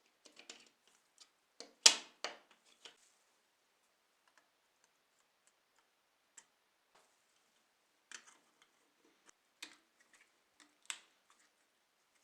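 Scattered light clicks and taps of small objects being handled, with a cluster of sharp clicks about two seconds in, the loudest of them, and a few isolated ticks later on.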